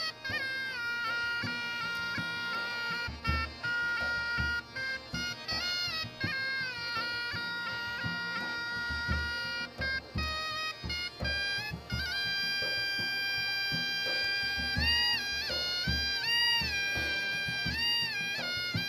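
Shehnai playing a melody of long held notes ornamented with quick slides up and down, moving to a higher held note about two-thirds of the way through. Harmonium and hand-drum beats accompany it.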